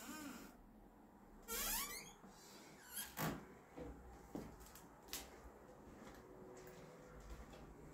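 Door hinge squeaking in a short rising squeal, followed by a few light knocks and clicks.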